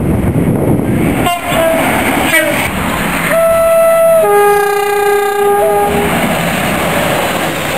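A train's two-tone horn sounding over the rumble of a moving train. There are two short toots, then a held high note and a longer low note, the classic high-low two-tone call.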